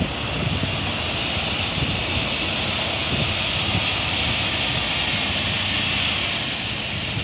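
MAN tipper truck driving past close by, its diesel engine running, over a steady high hiss; the sound swells as the truck comes nearest and eases off near the end.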